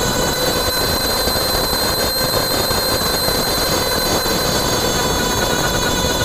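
Front axle noise of a 1989 Toyota pickup driving in four-wheel drive, heard close to the right front wheel: a steady whine at several pitches over the rush of tyres and road.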